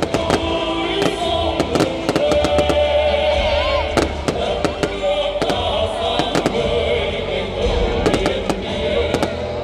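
Aerial fireworks bursting overhead in an irregular run of many sharp bangs and crackles, with music playing underneath.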